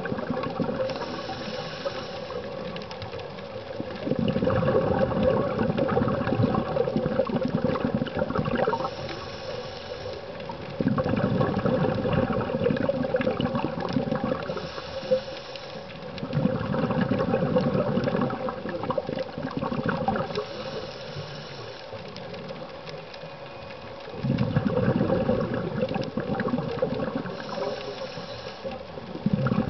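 Scuba diver breathing through a regulator underwater. Each breath is a short hiss on the inhale, followed by a few seconds of rumbling exhaled bubbles, repeating about every six to seven seconds.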